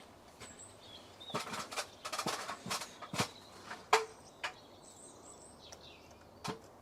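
Scattered sharp clicks and light plastic knocks as electrical connectors are plugged onto the injectors of a Land Rover TD5 diesel engine, with a cluster of them early on and a louder single click near the middle.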